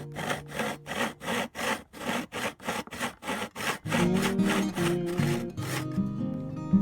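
Quick, even back-and-forth strokes of a hand tool on a small piece of wood, about three to four a second. Background music comes in more fully about four seconds in.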